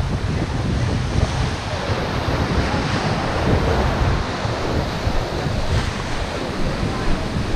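Wind buffeting the microphone in steady low gusts over the continuous rush of choppy surf.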